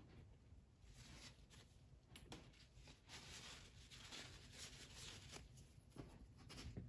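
Near silence: faint room tone, with a faint scratching of a soft pastel stroked on paper near the end.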